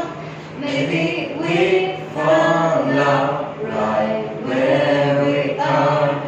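A young woman and a young man singing together a cappella, in held phrases of a second or two with short breaks between them.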